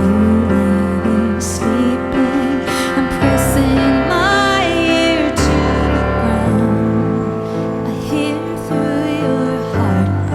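Soft, slow music without words: sustained chords over held bass notes that change every few seconds, with a high wavering, gliding melody about four seconds in.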